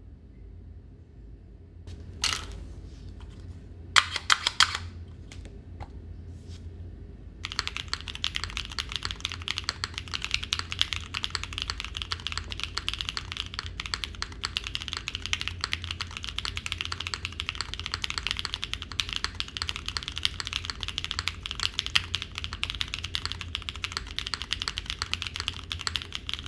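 Mechanical keyboard fitted with Dorothy linear switches being typed on: a few separate keystrokes in the first seconds, then steady, fast typing from about seven seconds in.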